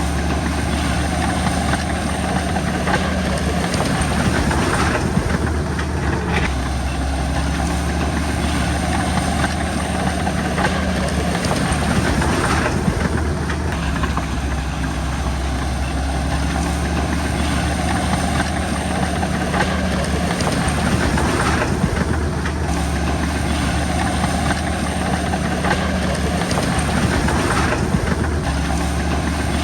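Bulldozer's diesel engine running steadily at work, its note shifting in a repeating pattern about every seven seconds.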